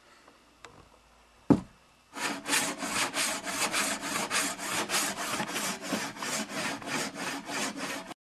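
Handsaw sawing back and forth through a cardboard box in even strokes, about three a second, starting about two seconds in and cutting off abruptly near the end. A single sharp knock comes just before the sawing starts.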